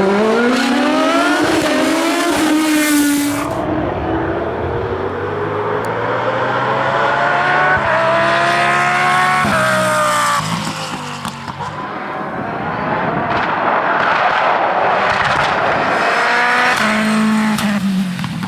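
Hillclimb race car engine at high revs, accelerating hard through the gears. The pitch climbs through each gear and drops sharply at the shifts, with a brief lift around the middle.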